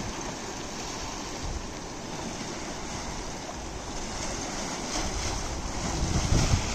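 Shallow river water sloshing and rushing as an elephant wades through it, with wind buffeting the microphone. The rumble grows louder near the end.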